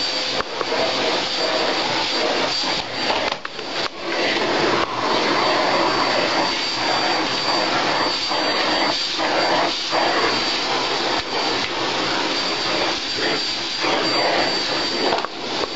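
Canister vacuum cleaner running, its floor-brush nozzle drawn over a dog's fur: a steady rush of suction with a thin high whine, dipping briefly several times as the nozzle moves on the coat.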